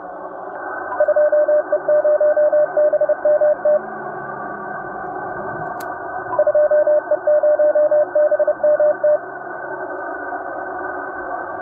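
Morse code: a steady tone near 600 Hz keyed in dots and dashes over the narrow hiss of a radio receiver. Two runs of code, one starting about a second in and another about six seconds in, with only the hiss between them.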